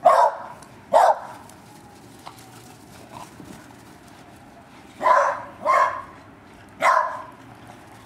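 Dog barking in play: five short barks, two about a second apart at the start, then three more from about five seconds in.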